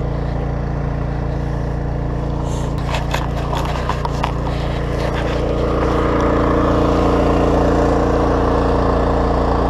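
Electrofishing boat's motor running steadily with a low, even hum. A few sharp clicks and knocks come around three seconds in, and the motor gets somewhat louder from about six seconds in.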